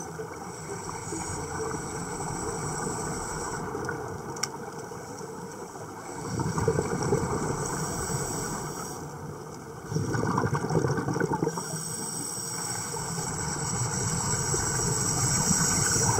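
Underwater scuba air bubbling and rushing, louder in two stretches about six and ten seconds in, as a diver feeds air into a lift bag. A faint steady high whine runs underneath.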